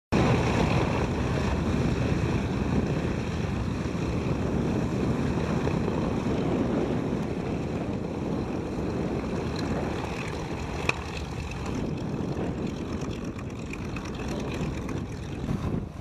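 Steady engine drone mixed with wind buffeting the microphone, cutting in suddenly at the start, with one sharp click about eleven seconds in.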